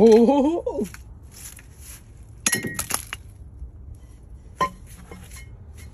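A short wordless vocal sound with a bending pitch, then a few sharp clinks and knocks of hard objects about two and a half seconds in, with one more click near the end.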